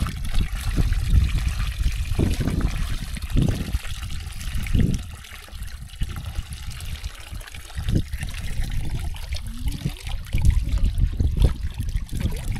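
Water trickling and pouring from a plastic bucket into lake shallows as trout eggs are rinsed and the floating unfertilised eggs are poured off, over a low rumble that swells and fades.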